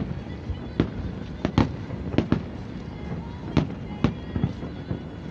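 Fireworks display: a string of sharp bangs, about eight in five seconds at irregular intervals.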